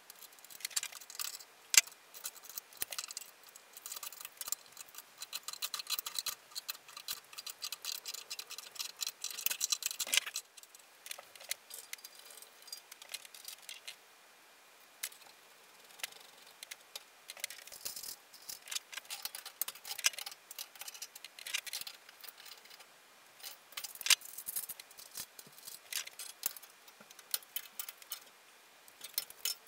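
Irregular light metallic clicks and clinks of hand tools and small steel parts being handled on a vintage bandsaw's wheel cover and fittings, with a quieter spell about halfway through.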